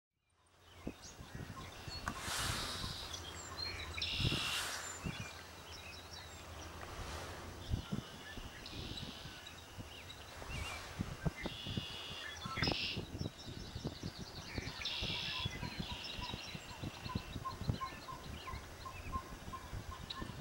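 Wild birds calling at a pond: short high chirping phrases repeat every few seconds, and from about halfway a steady series of short low pips comes about twice a second. A few brief rushes of noise come in the first half.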